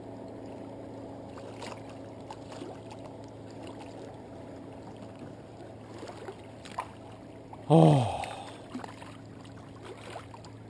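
A man's loud, short groan falling in pitch about eight seconds in, over a steady low hum and scattered small clicks and knocks.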